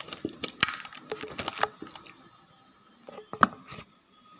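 Handling noises at a table: a quick run of clicks and crackles in the first two seconds, then a sharp knock a little after three seconds.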